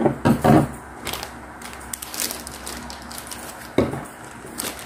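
Knocks, clicks and rustling from a plastic ink bottle being handled on a tabletop. Loud knocks come at the start, and another a little before the end.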